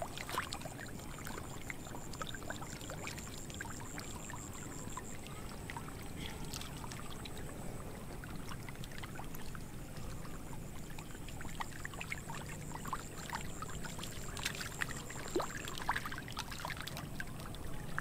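Many catfish thrashing in shallow muddy water: continuous sloshing with many small, sharp splashes. A high, fast trill runs in the background, dropping out about five seconds in and returning near ten seconds.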